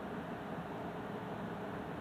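Steady low hiss of room tone, even throughout, with no distinct events.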